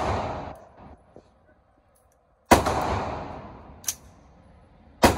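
Two gunshots about two and a half seconds apart, each ringing off the walls of an indoor shooting range and dying away over a second or more; a single sharp click falls between them. It opens on the fading echo of an earlier shot.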